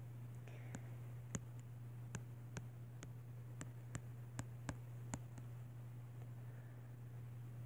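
Faint, irregular clicks of taps on a tablet touchscreen as words are written on it by hand, about a dozen of them that stop about five and a half seconds in, over a steady low hum.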